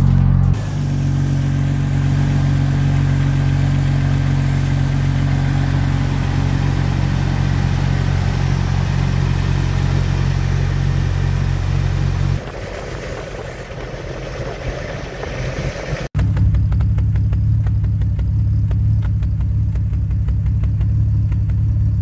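Jeep Wrangler TJ engine idling steadily just after start-up. It still has the cylinder 3 misfire, worst at idle, that a new coil pack has not cured. The sound changes abruptly twice, about 12 and 16 seconds in.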